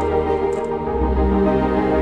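Background music: a slow ambient piece of sustained chords, shifting to a new chord about a second in.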